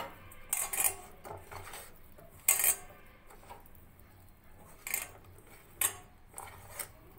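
Hand mixing masala-coated taro pieces in a stainless steel plate, with about five short metallic clinks against the steel, irregularly spaced a second or two apart.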